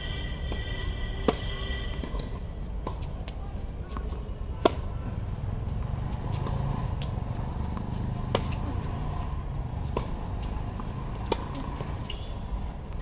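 A tennis rally on a hard court: about five sharp racket strikes on the ball, a few seconds apart at first and quicker near the end, over a steady high-pitched whine.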